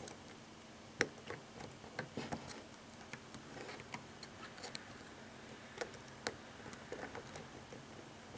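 Lock pick and tension wrench working a wafer lock by single-pin picking: faint, scattered clicks and ticks of metal on metal, the sharpest about a second in.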